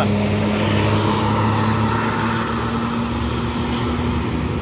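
Large intercity coach passing close by: a steady low engine drone with tyre and road noise, easing slightly towards the end.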